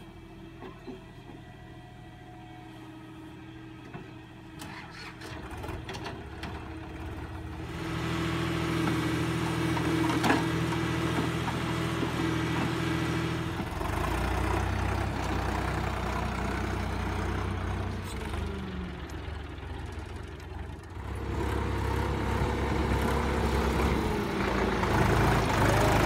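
Diesel tractor engines running. They idle steadily at first and run louder from about eight seconds in. From about fourteen seconds a deeper, heavier engine note comes in as a Sonalika tractor pulls its trolley loaded with mud. The pitch falls briefly, then the engine runs loud again near the end.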